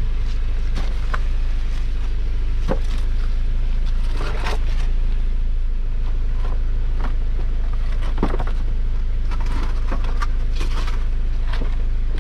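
Off-road vehicle's engine idling steadily while it holds in place on the trail, with scattered scrapes and knocks from rocks and gear several times.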